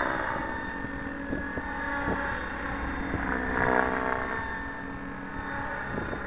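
Align T-Rex 700 RC helicopter in flight: the steady whine of its drivetrain and rotor blades, swelling louder a little before the middle as it passes. Wind buffets the microphone.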